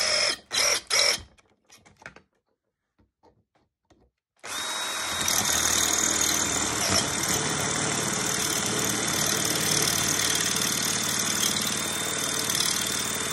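Cordless drill boring into an Ultion 3* Diamond euro lock cylinder clamped in a vise, working through the lock's long firing pin. A few short bursts on the trigger, a pause of about two seconds, then steady drilling with a constant whine from about four seconds in.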